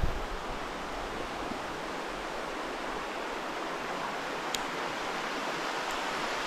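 River Dane running over a rocky bed: a steady rush of water that grows slightly louder as it goes.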